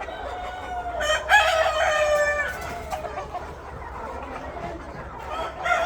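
Roosters crowing: one long crow about a second in and another beginning near the end, with chickens clucking in the flock between them.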